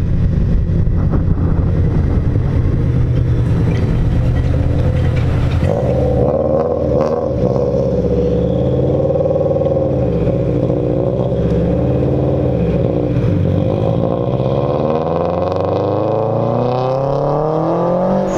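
Subaru Impreza WRX sedan's turbocharged flat-four engine driving past and pulling away, its note steady and low for the first few seconds, then wavering up and down. Near the end another car's engine rises in pitch as it passes close by.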